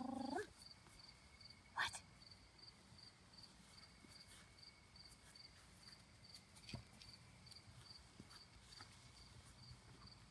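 Near silence outdoors, with a cricket chirping steadily in a faint high pulse about three times a second. There are a few soft clicks of movement on the grass, the sharpest about two seconds in.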